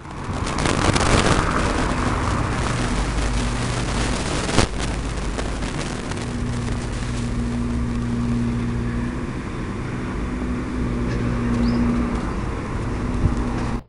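Street traffic: a car drives past near the start with a falling pitch, then a steady low engine hum carries on. There is a sharp click about four and a half seconds in and another near the end.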